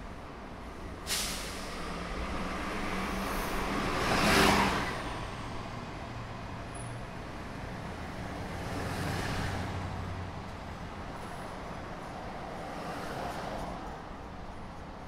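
City street traffic: a sudden hiss about a second in, then vehicles passing by, the loudest swelling up about four and a half seconds in, with softer pass-bys around nine and thirteen seconds.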